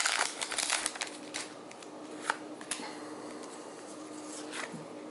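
A stack of Pokémon trading cards and their foil booster wrapper being handled: busy rustling for about the first second and a half, then a few light clicks as the cards are slid against each other.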